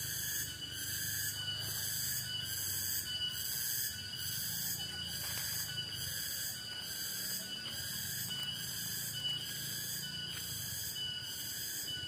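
Forest insect chorus: several steady high-pitched buzzing tones, with a higher shimmer that pulses about once a second, over a faint low rumble.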